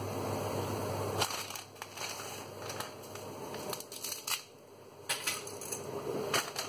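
Dry spaghetti being handled and dropped into a pot of boiling water: a string of sharp clicks and crackly rattles as the hard, brittle sticks knock against each other and the pot. A steady low hum stops about a second in.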